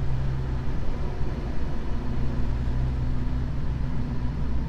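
Suzuki GSX-S 1000 GT's inline-four engine running at steady, even revs while riding along, under a constant rush of wind and road noise.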